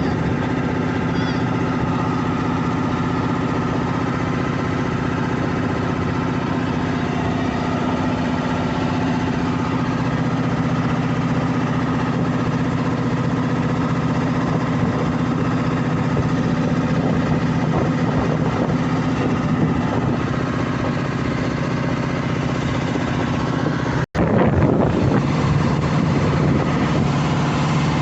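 Mitsubishi 8DC V8 diesel engine of a 15-ton boat running steadily. There is a momentary break in the sound about 24 seconds in, after which it runs a little louder.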